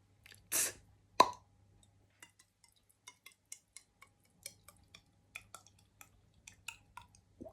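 Mouth-made drinking water sound effect: a short hiss, then a loud hollow plop about a second in, followed by a run of small wet clicks, roughly two a second, imitating gulps.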